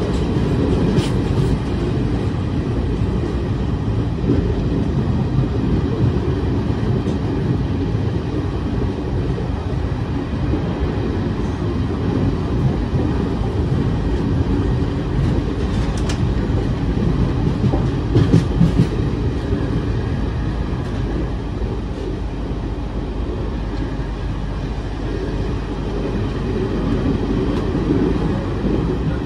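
Garib Rath Express passenger train running along the track, heard from an open coach door: a steady low rumble of wheels on rails, with a few sharp clicks along the way.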